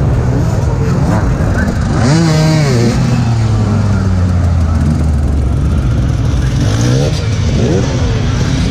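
KTM enduro motorcycle engine running at idle, with engine revs swelling up and falling back twice, about two seconds in and again near the end. Voices in the background.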